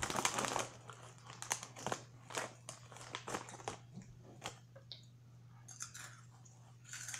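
Crinkling of a Cheetos snack bag being handled. It is loudest in the first half-second and again near the end, with many short sharp crackles between.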